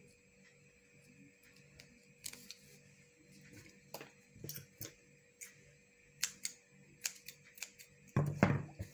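Scattered light clicks and rustles of hands handling feathers and stiff crinoline mesh, with a louder rustle near the end. A faint steady hum runs underneath.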